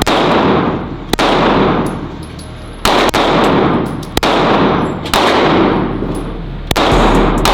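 Gunshots fired one at a time in a shooting-range lane, five loud shots about one to two and a half seconds apart. Each shot is followed by a long echo, and fainter sharp cracks fall in between.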